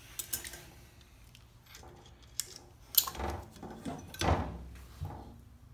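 Metal parts clinking and clanking as a valve spring is set on an air-cooled cylinder head and a C-frame valve spring compressor is fitted over it. Several sharp clicks, with the loudest clank about three seconds in and scraping clatter just after.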